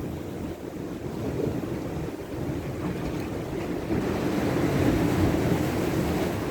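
Ocean surf washing against the shore, swelling louder about four seconds in, with wind buffeting the microphone.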